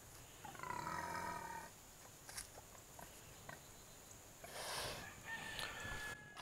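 Berkshire sow growling: a pitched growl about half a second in, lasting about a second, then a short rough snort about four and a half seconds in. It is the aggressive fence-line growling the owner finds odd in a sow that is not in heat.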